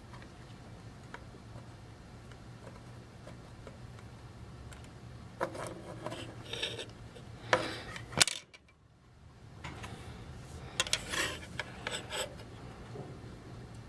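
Small metal tools and wire being handled at a workbench during a solder repair: scattered scrapes, rubs and clicks, with two sharp knocks just past the middle and another run of clicking and scraping near the end, over a low steady hum.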